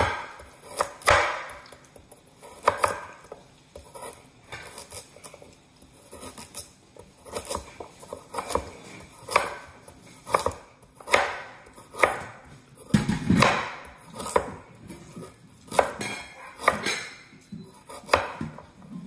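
Chef's knife chopping vegetables on a wooden cutting board: irregular sharp knocks of the blade against the board, about one or two a second, with one duller, heavier thud about two-thirds of the way through.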